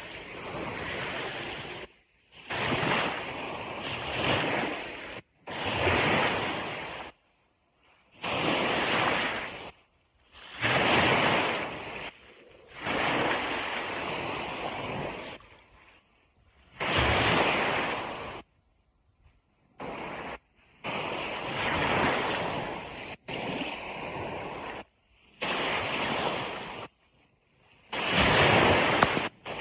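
Ocean surf washing on a beach in repeated surges, each a second or two long, broken by abrupt short gaps of near silence.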